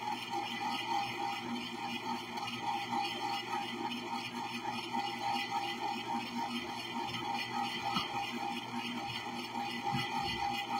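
Electric freezer-bowl ice cream maker running steadily, its motor turning the bowl to churn a batch that has already thickened like soft-serve.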